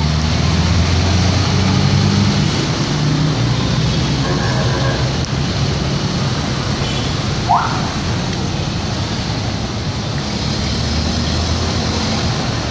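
Busy street traffic: jeepneys, cars and motorbikes going by, with a low engine hum that is strongest at the start and again near the end. A short rising squeak sounds about halfway through.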